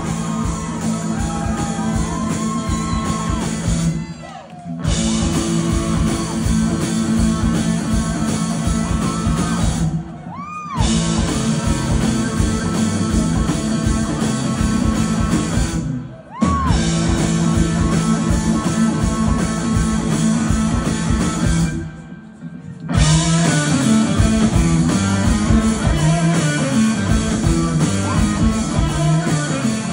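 Live rock band playing, heard from the crowd: electric guitars, bass and drums, with some singing. The sound cuts out briefly four times where clips are joined.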